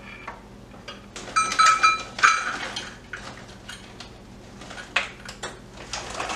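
Pecans shaken from a crinkling plastic bag into a small metal measuring cup and tipped into a mixing bowl: rustling and rattling clicks, with a few short ringing clinks about one and a half to two and a half seconds in.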